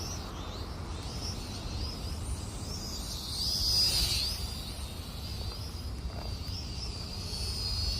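Syma X440 mini quadcopter's motors whining in flight, the high pitch wavering up and down with throttle and loudest about four seconds in, over a steady low rumble.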